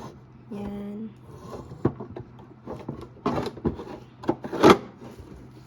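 Plastic parts of a toothbrush holder and toothpaste dispenser being handled: a few knocks, clicks and clatters, the loudest about four and a half seconds in.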